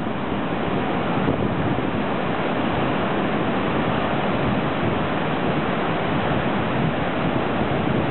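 Surf breaking and washing in a steady rush, with wind on the microphone.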